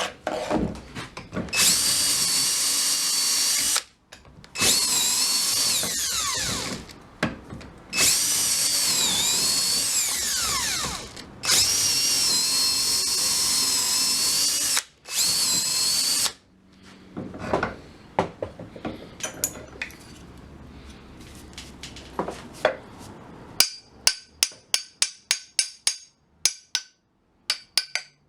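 Electric drill running in four bursts of a few seconds each, its pitch dipping as it bogs down under load while boring into the stuck old handle in the hatchet head's eye. Near the end, a fast run of sharp hammer blows, about three a second, knocking the handle out.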